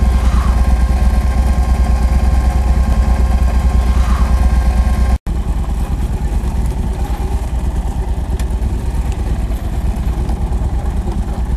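Yamaha Super Ténéré's parallel-twin engine running steadily with no revving. It cuts out for an instant about five seconds in, then carries on slightly quieter, idling.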